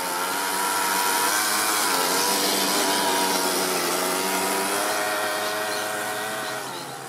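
Toyan FS-S100 four-stroke single-cylinder overhead-cam engine in an RC crawler running at high revs as the truck drives, its pitch wavering up and down with the throttle. It fades near the end as the truck moves away.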